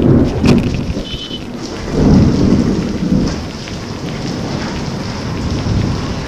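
Heavy rain pouring down with rolling thunder, the rumble swelling at the start and again about two seconds in.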